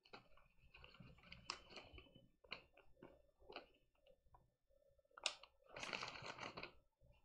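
Near silence: room tone with faint scattered clicks and rustling, and a slightly louder rustle lasting about a second and a half near the end.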